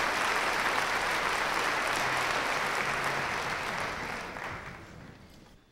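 Concert audience applauding, the clapping fading away over the last second or so.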